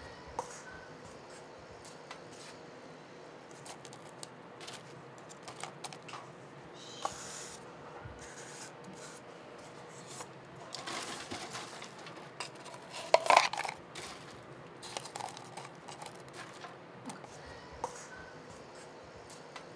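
Scattered light clicks and scrapes of metal tongs against a stainless steel tray of French fries, with one louder metallic clank about two-thirds of the way through.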